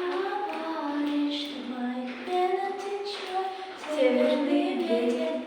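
Young female voices singing a melody together without accompaniment, holding and changing notes in a slow sung line.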